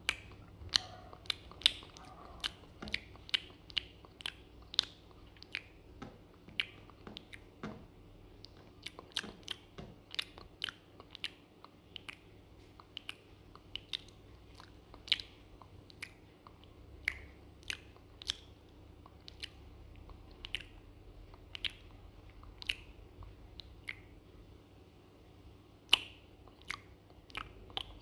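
A dog eating from a stainless steel pot: a long run of sharp, irregular crunching and chewing clicks, one to three a second.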